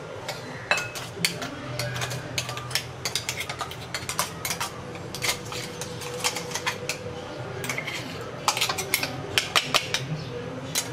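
A utensil knocking and scraping against a steel mixer-grinder jar and a glass bowl as ground jackfruit seeds are emptied out. Quick, irregular clinks and taps come in flurries of several a second.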